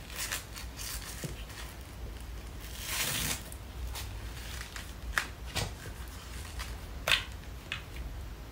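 Handling noise as a wireless knee massager is fitted onto a knee: scattered light clicks and taps of plastic and rustling of cloth, with a longer rustle about three seconds in.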